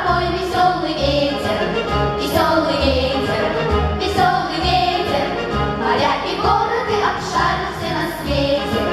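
A group of voices singing a song in unison over an instrumental accompaniment with a steady, regular bass beat.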